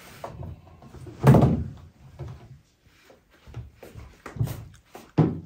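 Items being moved and set down on a wooden chest of drawers: one loud thump about a second in, then several lighter knocks.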